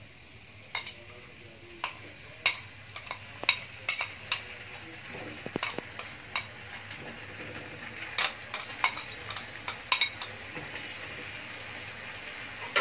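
Irregular sharp clicks and taps of a utensil against a container and the wok as ground spice paste is scraped out onto raw chicken pieces, over a faint steady sizzle from the wok on medium heat.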